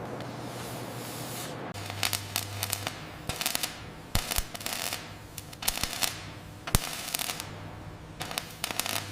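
Repeated bursts of sharp crackling clicks, coming in short clusters about every second, over a steady low hum.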